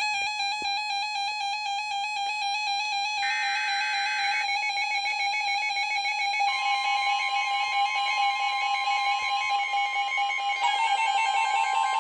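Electronic emergency alert tones from a NOAA Weather Radio flood warning: a steady alarm tone with buzzy, pulsing overtones that change pattern every second or two, and a second, higher steady tone joining about six seconds in.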